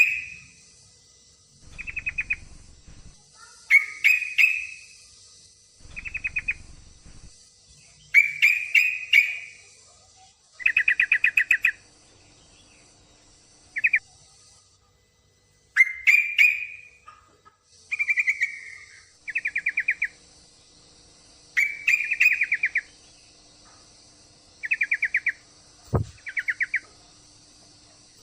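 Yellow-vented bulbul (trucukan) calls: short bubbly chirping phrases repeated every one to two seconds, over a steady high hiss. They are given as a female in breeding condition calling a male, and are used as a lure to get a silent male singing. A single thump comes near the end.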